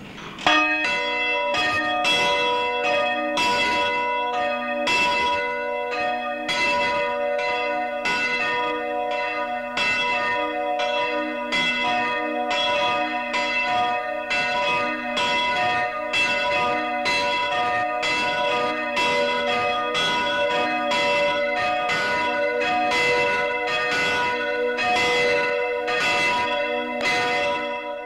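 A ring of eight church bells, recast by John Taylor's of Loughborough in 1935, being rung full circle in change ringing. The bells strike in an even, unbroken stream, several strokes a second, and their tones hang and overlap.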